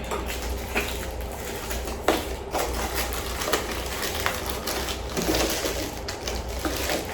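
Plastic packaging crinkling and rustling, with small clicks and knocks, as shower-head parts are handled and unwrapped.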